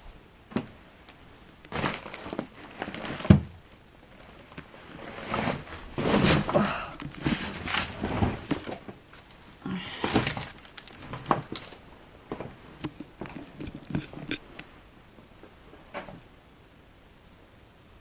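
Irregular rustling, crinkling and knocking, as of someone moving about over debris and handling things in a small room, with one sharp knock about three seconds in.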